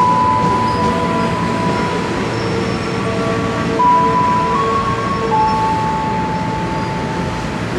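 Train running past on the rails: a steady rumble of wheels and cars, with several high ringing tones that hold and shift in pitch every second or two.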